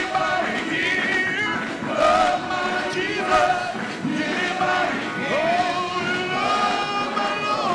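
Gospel choir singing a praise and worship song, with two brief sharp hits about two and three and a half seconds in.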